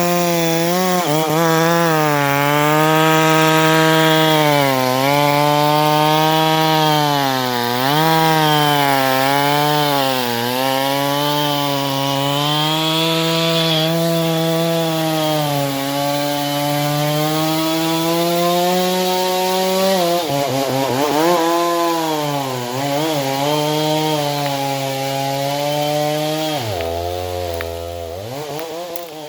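Two-stroke chainsaw running at high revs while cutting wood, its engine pitch dipping and recovering as the chain bites into the cut. Near the end it drops briefly to idle, then revs back up.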